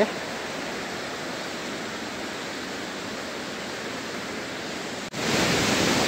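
Steady rush of a mountain waterfall heard from a distance. About five seconds in it jumps abruptly louder and closer.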